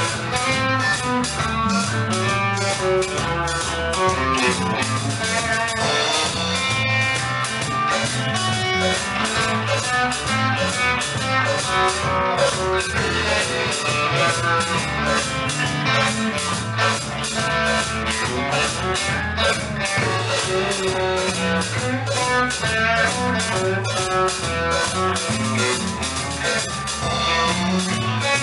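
Live band playing a blues-rock tune, electric guitar over a steady drum kit beat, with no break.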